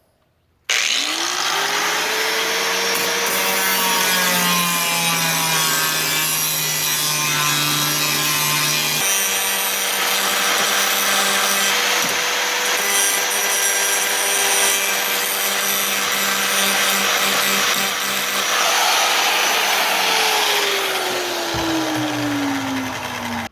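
Power grinder spinning up with a rising whine and grinding a small amount off the end of a T-handle latch receiver for about twenty seconds, then winding down with a falling whine. The grinding shortens the receiver so the latch arm can clear it.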